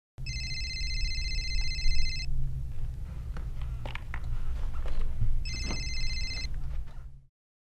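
A telephone ringing twice with a steady electronic tone, first for about two seconds and then a shorter ring a few seconds later, over a steady low hum, with a few light knocks in between.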